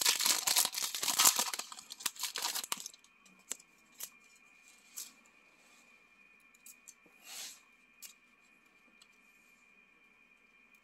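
A trading-card pack wrapper torn open and crinkled for about three seconds, then a few faint taps and one brief rustle as the cards are handled.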